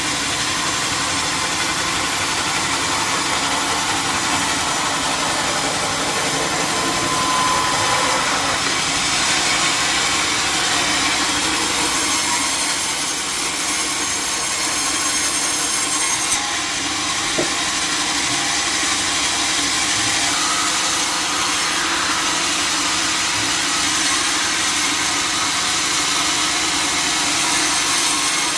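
Sawmill saw running steadily as it cuts through timber, with the machine's constant hum under the sound of the cut.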